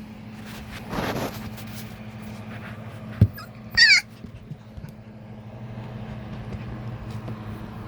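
Husky puppy of about three and a half weeks giving one short, high squeal a little before the middle, with a soft thump just before it and some rustling earlier, over a steady low hum.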